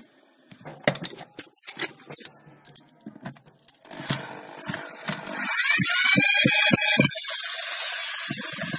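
Clinks and knocks as the wire stand and the tool are handled. Then, about five seconds in, an angle grinder fitted with a drill chuck starts up, runs loudly for about three seconds with its pitch rising and then dropping, and begins to wind down near the end.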